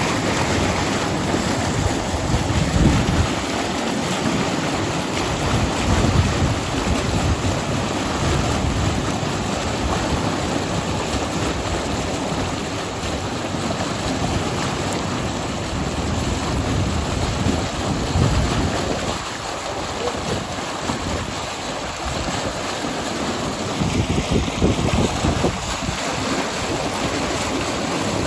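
Water and live trout pouring out of a corrugated discharge hose into a pond: a steady rushing splash, the sound of fish being stocked from a transport tank. Wind buffets the microphone in low gusts now and then.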